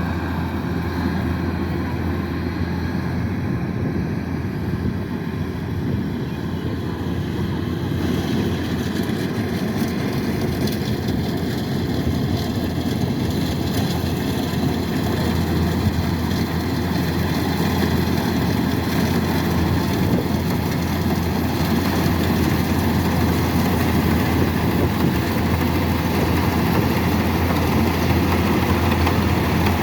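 Kubota DC-108X combine harvester's diesel engine running steadily as it harvests rice, a constant low hum that grows a little louder in the second half.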